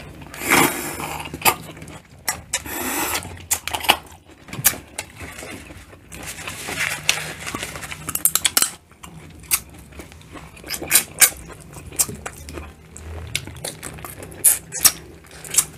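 Eating sounds of shell-on shrimp being peeled by hand and chewed, with many short sharp smacks and clicks from mouths and fingers.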